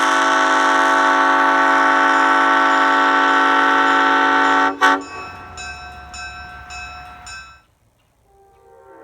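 Scalloped-base Nathan Airchime M5 five-chime train horn blowing a long, loud chord that cuts off sharply a little under five seconds in, with a short blip just after. The sound then goes on weaker and wavering for a couple of seconds and stops. After a brief gap the horn starts sounding again softly near the end.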